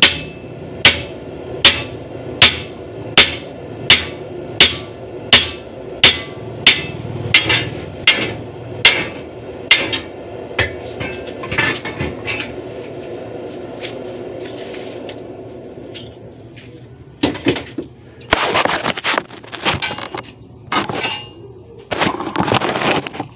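A blacksmith's hammer striking metal in a steady rhythm, about four blows every three seconds, fading out after about twelve seconds. Near the end come a few rough, irregular scraping noises.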